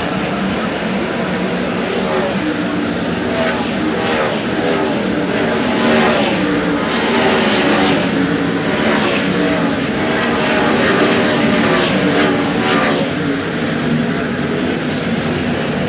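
A field of World of Outlaws 410 sprint cars, methanol-burning V8s, running at high revs around a dirt oval, several engines overlapping as cars pass one after another. The sound swells through the middle and eases toward the end.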